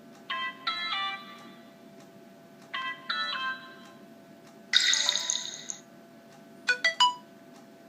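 Short stock notification tones of a Huawei Ascend Y330 smartphone, previewed one after another: a quick stepped chime heard twice, a brighter shimmering chime about five seconds in, then a few rapid blips near the end.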